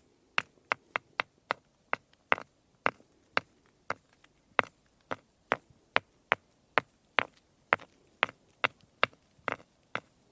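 Stone being scraped in short, sharp strokes, about two a second at an uneven pace, some strokes louder than others.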